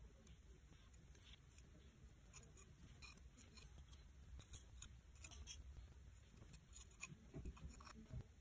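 Faint scraping and small clicks of a thin spatula working lacquer putty along the cracks of a glazed ceramic bowl, with a few soft knocks near the end as the bowl is handled.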